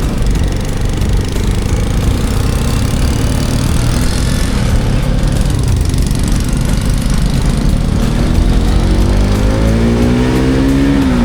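Motorcycle engine running under way, with a steady rumble. In the last few seconds its pitch rises as it accelerates, then drops sharply near the end.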